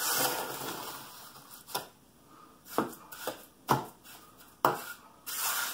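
Flat hand trowel scraping and pressing wet, stiff countertop concrete in a mould: one longer scrape at the start, then a series of short separate strokes.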